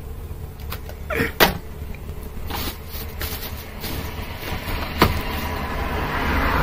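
Plastic packaging and boxed goods being handled and set down: scattered clicks, knocks and rustles, the sharpest about a second and a half in and about five seconds in, over a steady low hum. A rushing noise swells near the end.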